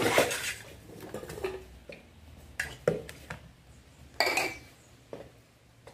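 Cooking pot and lids being handled: a short clatter of hands stirring seasoned meat against the pot at first, then a few separate knocks and clinks as things are moved about on the counter. The clink about four seconds in rings briefly.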